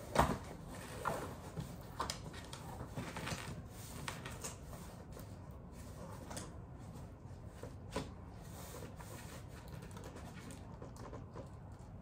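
Packaging being handled and worked open by hand: scattered rubs, scrapes and knocks. The sharpest knock comes just after the start, another about eight seconds in.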